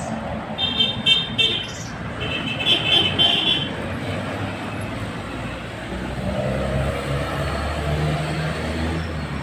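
Street traffic heard while riding a bicycle. A high trilling ring sounds twice in the first few seconds, and from about six seconds a motorcycle tricycle's engine hums close by as it draws alongside.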